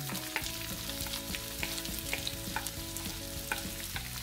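Chopped onions sizzling and crackling as they go into hot oil in a wok with tempered whole spices and dried red chilies, stirred with a wooden spatula. There is a steady hiss with frequent sharp pops throughout.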